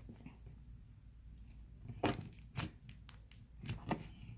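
Buttercream slime being squeezed and stretched in the hands, giving a series of small clicks and air-bubble pops, most of them in the second half.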